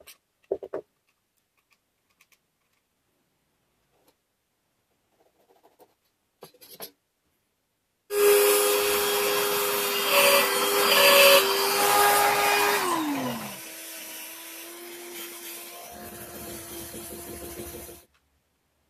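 An old electric jigsaw mounted under a homemade scroll-saw table, running and sawing plywood, with a steady motor whine over the cutting noise. About five seconds into the run the motor's pitch falls away, then it runs on more quietly before cutting off sharply. Before it starts, faint clicks of small metal parts being handled.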